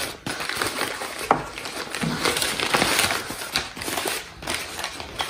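Paper burger wrapper crinkling and rustling as it is unfolded by hand, with many small irregular crackles.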